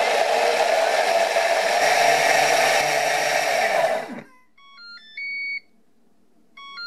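Vorwerk Thermomix motor running at top speed (speed 10), blending a thick tofu-and-cocoa mixture: a loud steady whirr with a rising whine as it spins up. About four seconds in, the motor winds down and stops as the timer runs out, and the machine sounds its end-of-timer signal, a short rising three-tone beep, repeated near the end.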